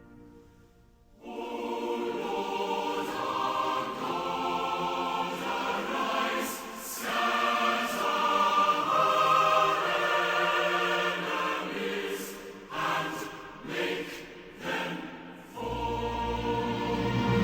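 Choral music: a choir singing held, layered chords, coming in about a second in after a moment of near silence.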